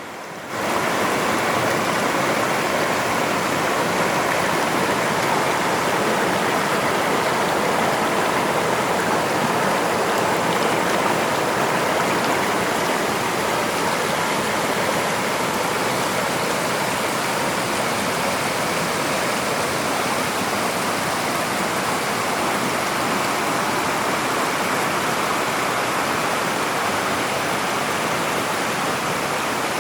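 Mountain valley stream rushing steadily over rocks, its flow swollen by rain.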